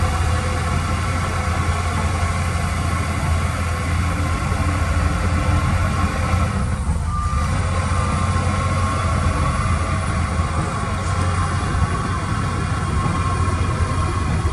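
Heavy diesel machinery engine running steadily with a deep rumble, with a couple of short reversing-alarm beeps about seven seconds in.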